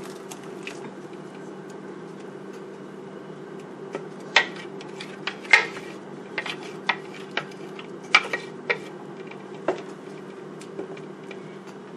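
Ground white peanuts being emptied from a plastic blender jug into a pan of water: a series of sharp, irregular knocks of the jug and utensil against the pan, starting about four seconds in, over a steady low hum.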